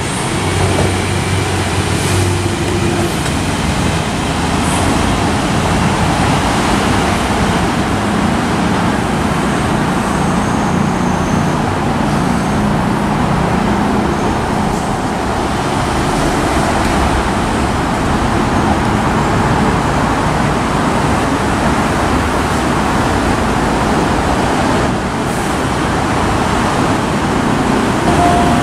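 Steady train and road noise as a diesel railcar runs away down the line, with a low engine hum in the first few seconds.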